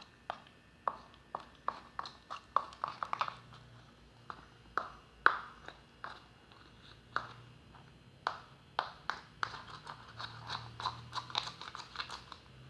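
Sticky glue-and-toothpaste slime being stirred, giving irregular wet clicks and smacks, about two or three a second.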